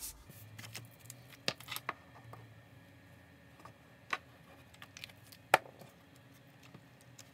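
Card stock being handled and laid down on a craft mat: a few light taps and clicks, the sharpest about five and a half seconds in.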